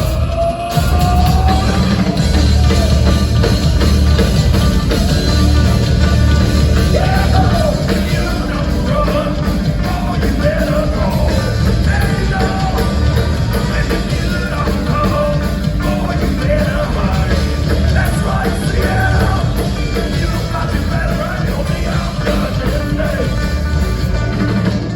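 Live "thrash grass" band, a mix of thrash metal and bluegrass, playing loud, heavy rock with pounding drums and bass and bending lead lines.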